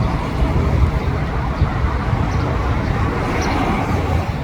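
Steady low rumble of road traffic, swelling about a second before the start and again past the middle as vehicles pass.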